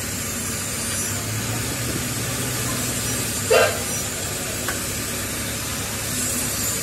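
An engine or machine running steadily with a hiss, and one short metallic clink partway through.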